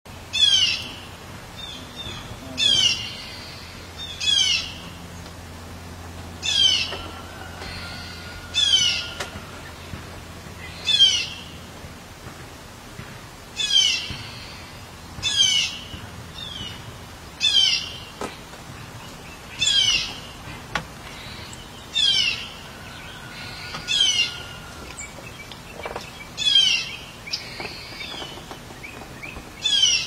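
Blue jay calling: a harsh, downward-slurred call repeated about every two seconds. Two faint, long whistled notes from another bird sit underneath.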